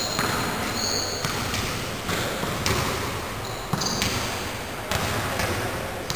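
Basketball bouncing on an indoor court during a pickup game, a few irregular thuds as players dribble, over a steady background hiss.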